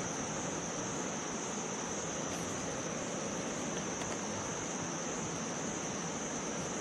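Steady high-pitched insect drone with a steady broad hiss beneath it, unchanging throughout.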